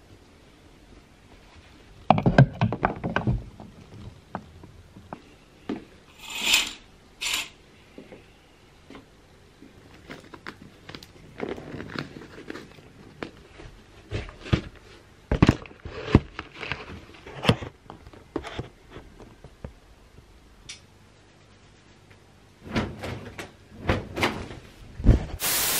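Rustling clothes and scattered knocks and thumps from someone getting dressed and handling things, with two short hisses about six and seven seconds in.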